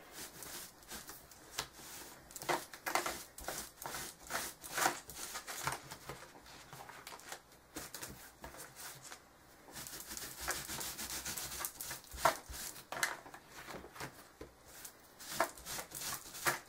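Baby wipe rubbing over a stencil mask to wipe the texture paste off it: a run of irregular short wiping strokes and rustles.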